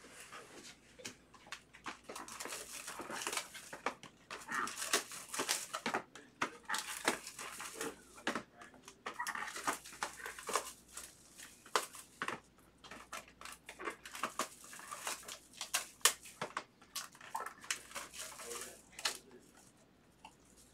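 Shrink-wrapped trading-card boxes being handled: plastic wrap crinkling, cardboard rubbing, and many short knocks and clicks as boxes are moved and set down.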